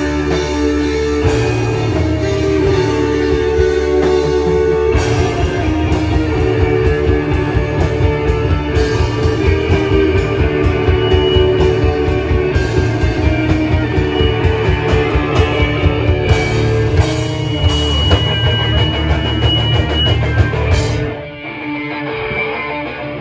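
Live rock band playing: electric guitars over a drum kit with steady, regular drum hits. About 21 seconds in, the drums and the lowest notes stop and the guitar carries on alone, quieter.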